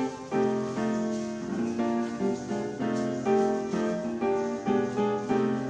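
Background instrumental music: a piano melody with notes changing about three times a second.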